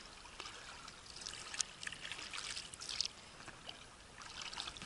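Small choppy waves lapping and splashing against the hull of an inflatable boat, with a couple of sharper splashes.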